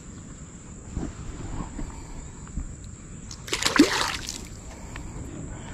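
A shoal bass released back into the creek: one short splash about three and a half seconds in as the fish hits the water and kicks away.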